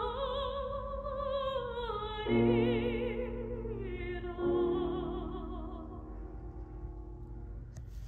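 Soprano voice singing a Korean art song with wide vibrato over grand piano accompaniment, the melody sliding downward. New chords come in about two seconds in and again about four and a half seconds in, and then the voice and piano fade away.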